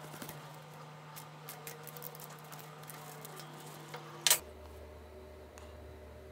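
Faint, light metal clicks and ticks as a stainless pipe plug and its driver are worked out of freshly formed threads in a cast aluminum part, over a steady low hum. A sharper click comes about four seconds in, and after it the hum is lower.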